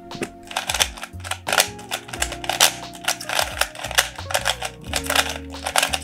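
Rapid, irregular plastic clacking of an old stickered 3x3 speed cube as its layers are turned fast during a timed speedsolve, over background music.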